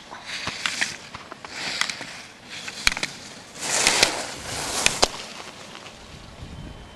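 Skis scraping and carving across hard-packed snow through a run of slalom turns, in repeated hissing surges. A few sharp clacks in the middle of the run sound as the skier's body and poles strike the slalom gate poles.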